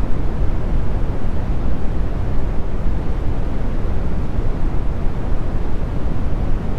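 Brown noise: a steady, deep rumbling hiss, loudest in the low end and fading toward the highs, with no change in level.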